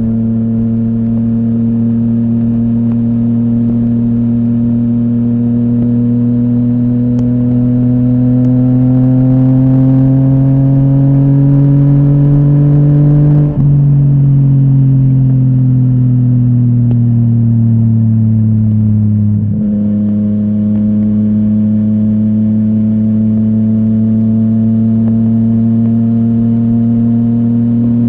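Yamaha MT-09's inline three-cylinder engine running through a full Akrapovic exhaust while riding. The revs climb slowly for about thirteen seconds, then a brief dip as the throttle closes. The revs fall away for several seconds, then jump back up and hold steady.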